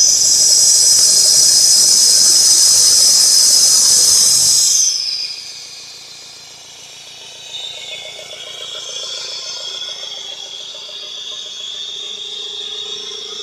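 A loud, high-pitched hissing whistle from a Toyota Land Cruiser's engine bay, with the engine running under it. It falls away and stops about five seconds in, leaving a quieter steady high whine.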